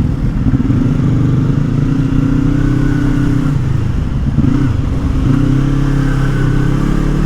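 Yamaha R25 V2's parallel-twin engine running under way, holding a steady pitch, dropping away about halfway through and climbing again as it pulls in the last couple of seconds.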